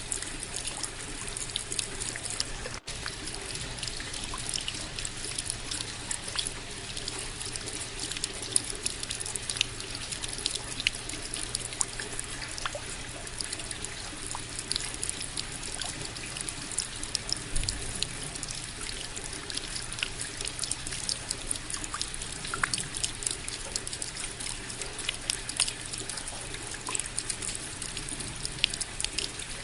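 Rain falling steadily, with many individual drops ticking sharply through the even hiss of the downpour. A split-second dropout comes about three seconds in.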